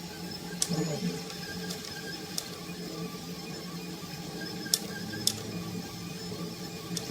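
Delta 3D printer's stepper motors humming steadily while printing. The pitch sweeps down and back up about a second in, and a handful of sharp clicks are scattered through.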